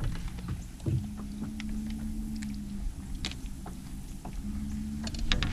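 Light clicks and taps from handling a freshly caught black crappie aboard an aluminum boat, while a low steady hum comes in twice, a second or so each time.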